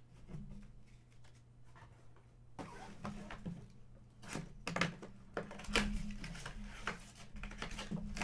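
Hands handling and opening a cardboard Panini Mosaic basketball mega box: scattered rustles, taps and clicks of the box and its flap, starting a couple of seconds in, over a low steady hum.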